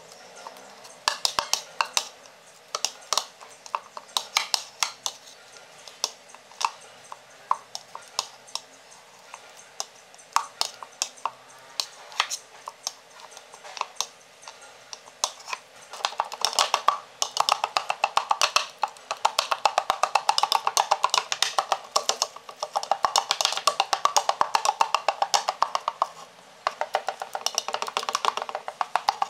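Metal spoon mashing banana chunks in a bowl: scattered clacks of the spoon against the bowl at first, then rapid, steady tapping from about halfway on as the banana breaks down to pulp.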